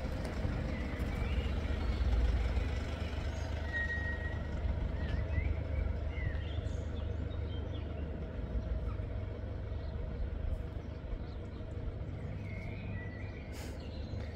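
Steady low background rumble, with a few short bird chirps over it.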